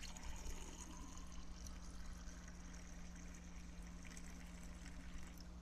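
Black grape juice poured in a steady stream into a glass mug, filling it up.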